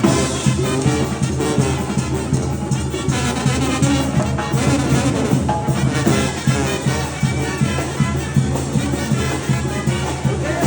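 Banda music: brass instruments playing over a steady low bass beat.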